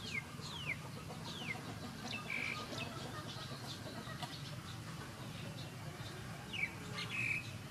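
Bird chirps in the background: several short chirps sliding downward in pitch, three within the first two seconds and more near the end, over a low steady hum.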